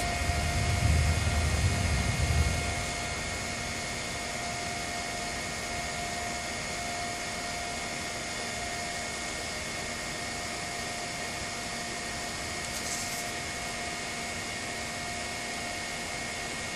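A 3D printer's fans whirring steadily, with faint steady whines riding on the noise. A low rumble during the first couple of seconds, then just the even whir.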